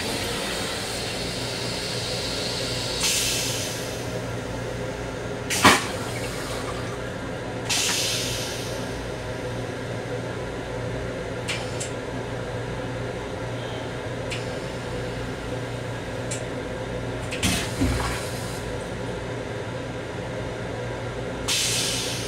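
Steady running hum of a Long Island Rail Road M7 railcar, heard inside its small restroom. Three short bursts of hissing, each about a second long, break in, along with a couple of sharp knocks; the loudest knock comes about six seconds in.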